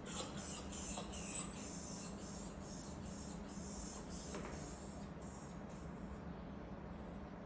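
Small dog whining at a closed door: a thin, very high-pitched whine that wavers and pulses for about five seconds, then stops. It is the whining of a dog left behind, crying for its absent owner.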